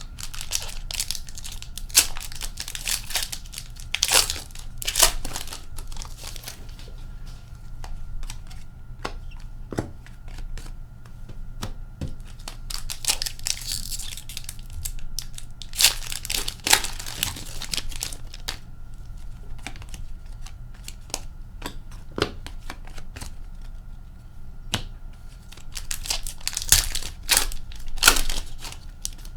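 Trading card pack wrappers being torn open and crinkled by hand, in irregular bursts of tearing and rustling as the packs of a box of hockey cards are opened.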